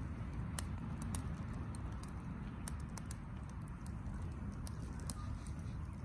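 Wood fire of sticks and twigs burning in a metal fire pit, crackling with irregular sharp pops over a steady low rumble.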